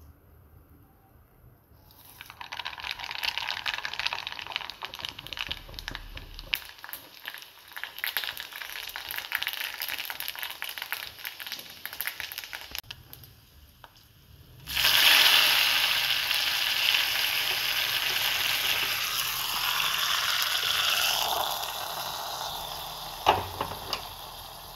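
Mustard seeds crackling and popping in hot oil in a small tempering pan for a Kerala-style seasoning. About halfway through, a sudden loud sizzle of the tempering holds for several seconds, then dies down. A single knock comes near the end.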